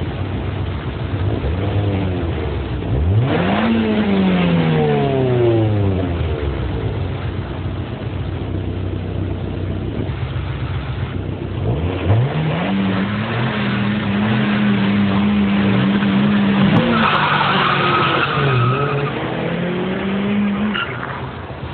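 Seat Panda's small petrol engine revving hard. It climbs sharply and winds down about three seconds in, then runs up again about midway and holds a steady high pitch, with a tyre squeal soon after.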